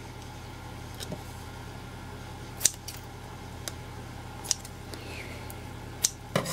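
Scissors snipping a thin piece of plastic milk bottle: a series of sharp, separate snips about a second apart, over a steady hiss of heavy rain on a garage roof.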